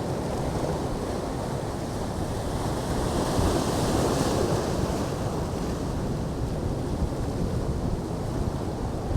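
Surf washing against rocks, with wind buffeting the microphone; a wave rushes in louder about three to five seconds in.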